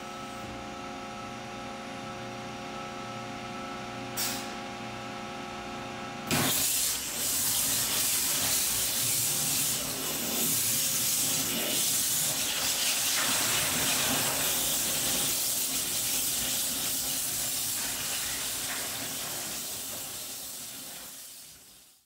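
A water-cooled stone-cutting machine (bridge saw with CNC spindle) running with a steady hum. About six seconds in, a loud steady hiss of spray and cutting starts suddenly, then fades out near the end.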